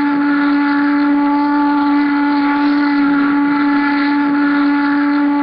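A loud, long held tone at one steady pitch, with a stack of overtones over a light hiss, like a steam whistle.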